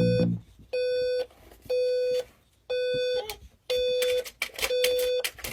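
Electronic beeper sounding a steady buzzy tone in half-second beeps, about once a second, with a few faint clicks between the later beeps.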